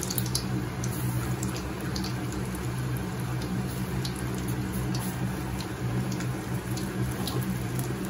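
Pakoras deep-frying in hot oil in a kadhai: a steady sizzle with scattered crackles and pops as fresh lumps of besan batter hit the oil. A steady low hum runs underneath.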